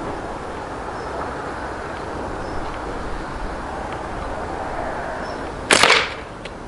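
Homemade catapult rifle firing a shot: one sharp crack as the released rubber bands snap forward, near the end, over steady background noise.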